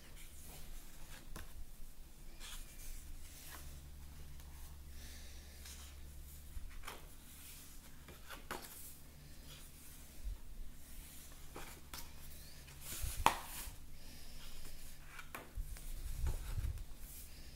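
Thick paper pages of a colouring book being turned by hand: repeated soft swishes and rubs of paper, with one sharper tap about thirteen seconds in.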